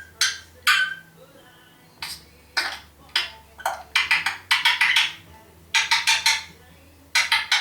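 African grey parrot babbling: a string of short, sharp, loud calls in quick clusters, including a rapid run of five or six near the middle and a pair near the end.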